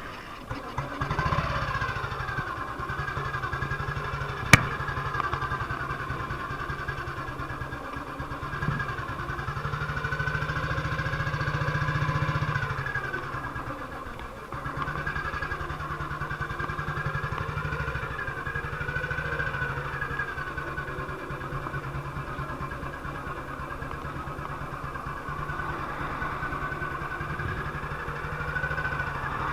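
1958 BSA C12's 250 cc single-cylinder four-stroke engine starting about a second in and then running steadily, its level swelling and dipping briefly midway, with its ignition misfire fixed. One sharp click a few seconds in.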